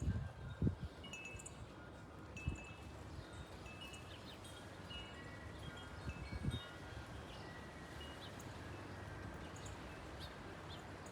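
Wind chimes tinkling: scattered short high notes over a faint steady background hiss, with a few brief low thumps.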